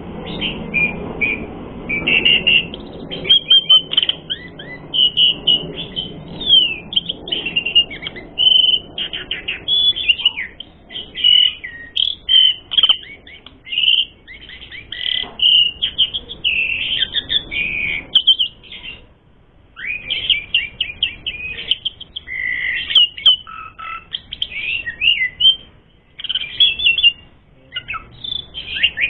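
Asian pied starling (jalak suren) singing continuously: a dense, fast run of varied chirps, whistles and trills, full of mimicked fill-in phrases, with short pauses about two-thirds of the way through and again near the end.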